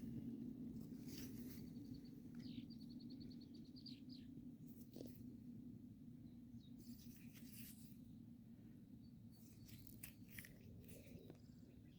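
Faint songbird calls in open country, with a quick trill of high, evenly spaced notes about two seconds in and scattered chirps later, over a low steady rumble.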